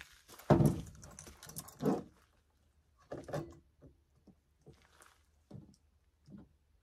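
Handling noises of chainsaw parts: a loud knock about half a second in, then scattered light clicks and rattles of the chain and bar being handled.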